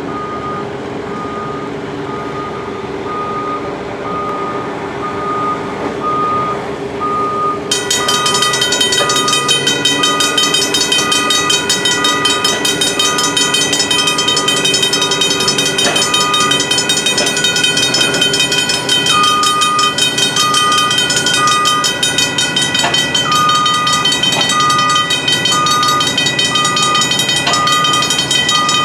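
Griswold mechanical crossing bells start ringing suddenly about eight seconds in and keep up a continuous metallic clanging as the crossing activates. Under them a backup alarm beeps at an even pace over a running engine.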